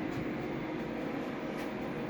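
Steady drone of drying machines running in a flood-damaged room, a constant rush of fan air with a faint hum.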